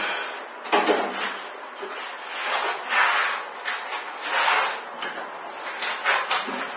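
Handling noise of wood: a parquet tile and tools being picked up, slid and set down, with a string of uneven rubbing and sliding swells and a few light knocks.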